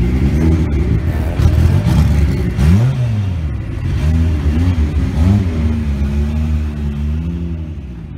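Engine of a lowered Toyota AE86 Corolla race car creeping past at low speed, with several short throttle blips that rise and fall in pitch. It fades steadily as the car drives off.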